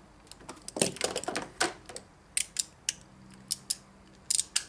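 Click-type torque wrench clicking on the oil filter housing cap as it reaches its 25 Nm setting, a sign that the set torque has been reached. A quick cluster of sharp clicks comes about a second in, then single clicks at intervals of about half a second.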